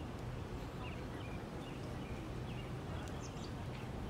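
Outdoor ambience: a few faint, short bird chirps scattered over a steady low rumble.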